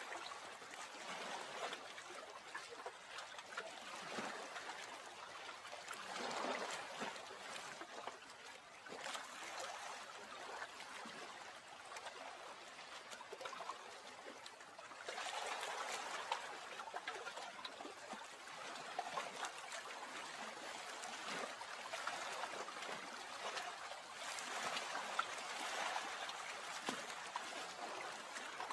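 Water trickling and lapping, rising and falling in soft swells every few seconds, with small splashy ticks.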